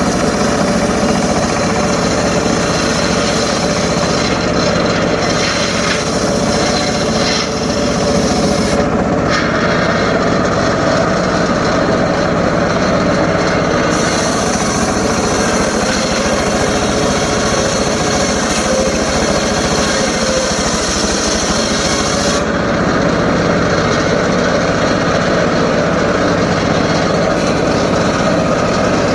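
Homemade circular saw running steadily and cutting short lengths of teak, the hiss of the blade in the wood dropping away and coming back several times.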